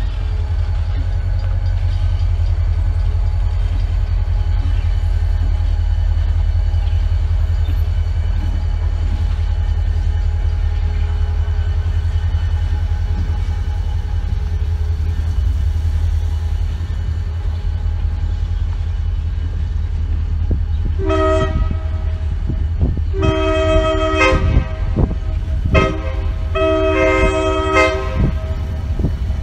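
Diesel freight locomotive's multi-note air horn sounding for a grade crossing: three blasts of about a second and a half each, the last held a little longer, over a steady low rumble.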